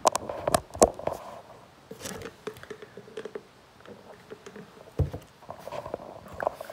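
Handling noise on the recording phone itself: a string of sharp clicks and knocks, then lighter rubbing and clicks and a low thump about five seconds in, as a charging cable is plugged into the phone.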